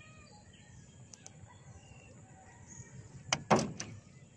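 Freshly caught tilapia dropped into the bottom of a boat, landing with three sharp thuds in quick succession about three and a half seconds in, the middle one the loudest. Faint birds chirp in the background.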